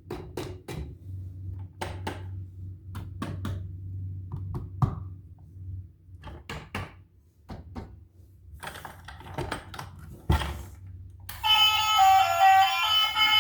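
Irregular clicks and knocks from toy packaging being handled, over a low steady hum. Background music comes in near the end.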